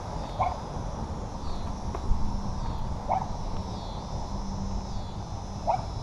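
Dog barking: three single short barks about two and a half seconds apart, over a steady low rumble.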